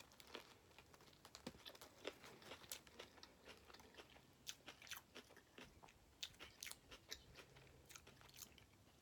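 A person chewing food close to the microphone: faint, irregular wet clicks and smacks, several a second.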